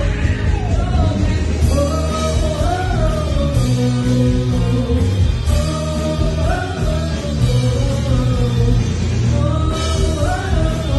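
Live rock band playing: a woman singing lead over electric bass, electric guitar and drum kit.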